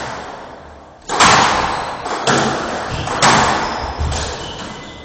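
A ricochet rally: four sharp hits of the ball by racquets and against the court walls, about a second apart, each echoing in the enclosed court.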